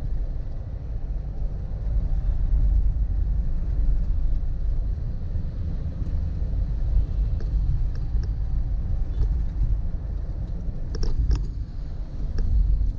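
Steady low rumble of a vehicle travelling on the road, with a few short clicks about eleven seconds in.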